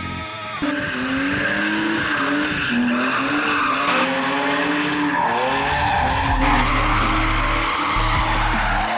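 A drifting car's engine revving up and down again and again while its tyres squeal and skid across the paving.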